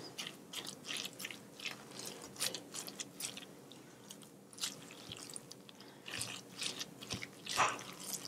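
A silicone spatula stirring and mashing soft stewed grated carrot with egg yolks in a stainless steel bowl: irregular soft wet squelches and scrapes, the loudest a little before the end.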